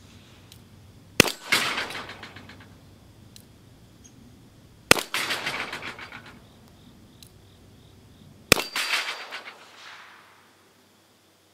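Three shots from an Enfield No. 2 Mk I* .38 revolver, about three and a half seconds apart. Each is followed a fraction of a second later by the ringing clang of a steel plate being struck by the heavy 200-grain bullet and knocked down.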